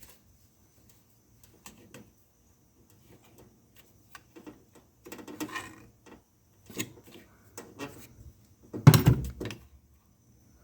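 Clicks, taps and knocks of a car trunk latch and its hard plastic parts being worked loose by hand, the latch stuck on tight. A few scattered taps, a short rattle about five seconds in, and one louder knock near the end.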